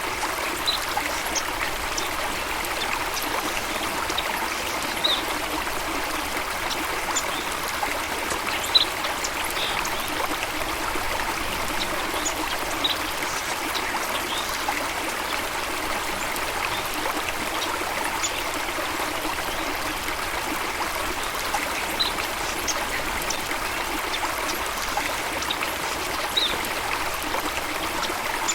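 Stream water running steadily, an even rushing trickle. Short high-pitched chirps come over it every few seconds.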